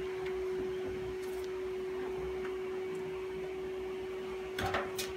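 Handling noise as a washing machine shock absorber is worked into place in the cabinet base: a faint click, then a couple of sharp knocks near the end, over a steady low hum.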